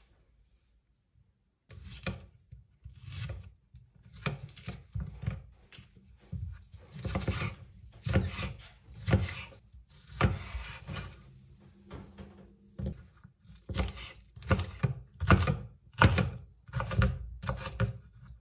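Kitchen knife slicing a yellow bell pepper into strips and then dicing it on a wooden cutting board: repeated cutting strokes with the blade tapping and scraping the wood, starting after a short silence and coming louder and faster near the end.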